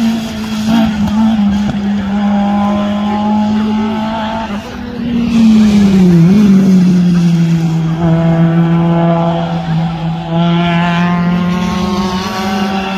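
Two rally cars pass one after the other on a wet track, engines held at steady high revs. The second, a Honda Civic hatchback, passes close and loudest about six seconds in, its engine note dropping in pitch as it goes by.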